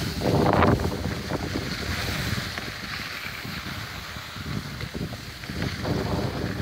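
Wind rushing over a phone microphone while skiing downhill, with the hiss and scrape of skis sliding over packed, groomed snow; louder for a moment in the first second and again near the end.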